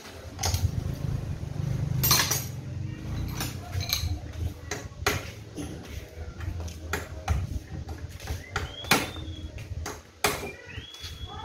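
Hand tools working on a Stihl 070 chainsaw: a few separate sharp metal taps and clinks, such as a hammer striking the saw's parts, over a low uneven rumble of handling.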